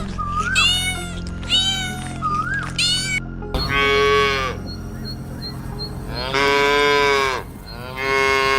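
Domestic cat meowing several times in quick succession, short rising-and-falling meows. After a sudden cut, a different, larger animal gives three longer drawn-out calls.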